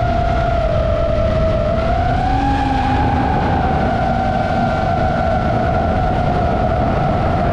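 FPV quadcopter's motors and propellers whining at a steady pitch, which sags and climbs again about two seconds in as the throttle changes, over a low rushing noise.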